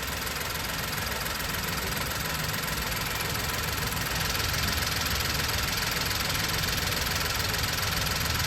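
VW Polo 1.2 MPI three-cylinder petrol engine idling steadily while its cooling system is refilled with coolant. It gets a little louder about four seconds in.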